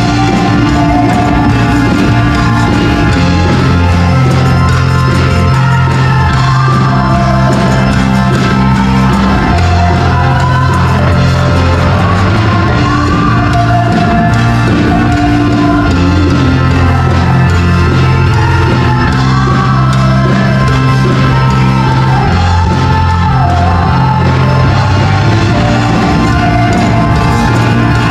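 Live gospel praise band and a women's vocal group performing an upbeat worship song: loud and continuous, with a steady bass line under the sung melody.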